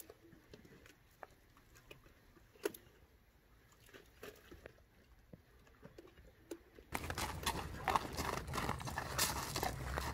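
Hoofbeats of a Tennessee Walking Horse mare, a faint, scattered clip-clop. About seven seconds in, the sound turns suddenly much louder and fuller.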